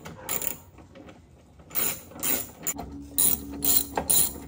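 Hand ratchet with a T40 Torx bit clicking in a series of short strokes, closer together in the second half, as it backs out the cowl bolts on a Jeep Wrangler.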